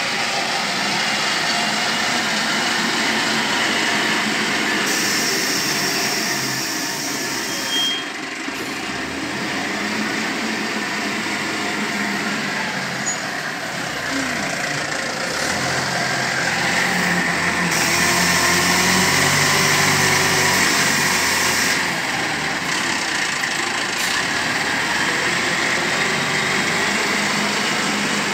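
Diesel engine of a SYZG wheel loader running under working load as it digs into a soil pile and raises its bucket. The engine grows louder for several seconds past the middle.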